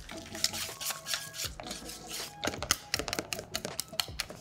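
Wire balloon whisk beating a thick egg-yolk and cheese paste in a stainless steel bowl: fast, irregular clicking and scraping of the wires against the metal.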